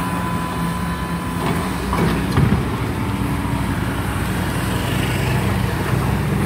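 An engine idling steadily close by, with a motorcycle riding past partway through.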